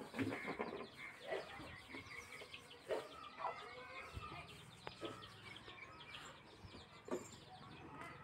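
Faint background animal calls, short and scattered, with a low steady hum partway through.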